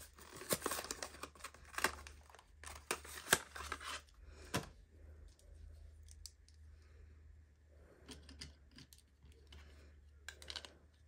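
Small plastic mini tape runner (adhesive dispenser) being taken out and handled: sharp plastic clicks and crinkly rustling for the first four or five seconds, then only faint fiddling sounds over a low steady hum.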